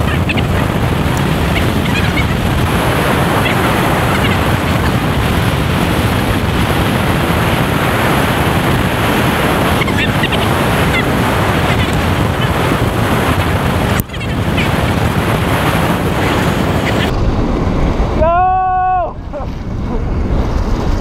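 Wind rushing and buffeting over a helmet-mounted microphone on a supermoto coasting downhill with its engine off. Near the end a brief pitched sound rises and falls in pitch for about a second.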